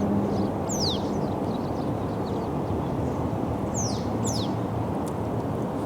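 Steady rush of flowing river water, with a bird giving three quick, high, downward-sliding calls: one about a second in and two close together near the four-second mark.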